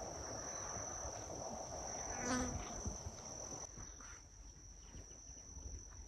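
Insects trilling in grassland: one steady, high, unbroken note. A soft rushing noise drops away about two-thirds of the way through, and a brief faint sound comes near the middle.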